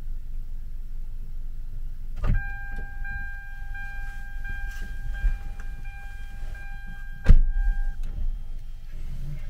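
Car cabin with a low steady rumble, then a click and a steady electric whine from a power window motor lasting about six seconds, with a sharp knock shortly before the whine stops.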